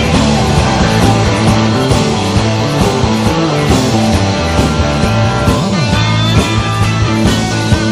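Rock band playing live at full volume with no singing: electric guitar, bass guitar and drums with cymbals driving a steady beat in an instrumental passage.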